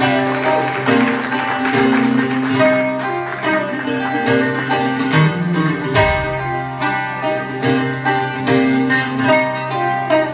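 Acoustic guitar picked in a steady run of single notes over a held low bass note: the instrumental intro of a folk song.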